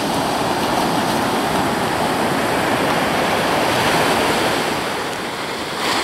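Ocean surf breaking and washing up the shore: a steady rush of water and foam that eases a little about five seconds in.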